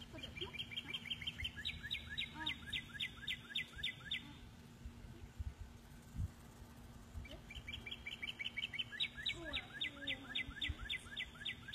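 A songbird singing twice, each song about four seconds long. Each one starts with a quick run of short high notes and turns into slower, stronger downslurred whistles.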